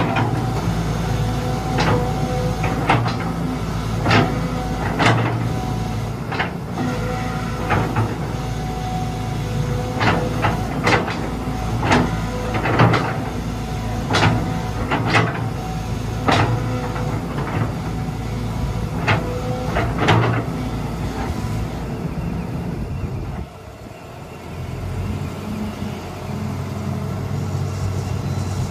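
Sany SY155C Pro hydraulic excavator's diesel engine running under working load while the boom, arm and bucket are worked, with a series of sharp knocks about once a second through the first two-thirds. Near the end the engine sound drops abruptly, then settles to a lower, steadier idle.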